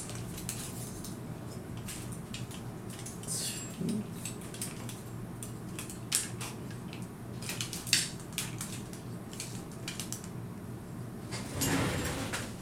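Scattered clicks and light clatter of a Hot Toys War Machine Mk IV 1/6-scale diecast figure being handled and posed, its joints and armour parts knocking as the limbs are set, over a steady low hum of room tone.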